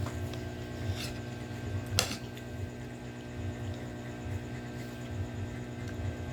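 Cutlery clinking against a dish a couple of times, the loudest clink about two seconds in, over a steady electrical hum.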